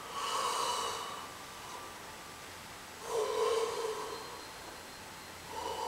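A person yawning audibly with the mouth wide open: breathy, drawn-out breaths, the first at the start, a stronger one about three seconds in, and a shorter one beginning near the end.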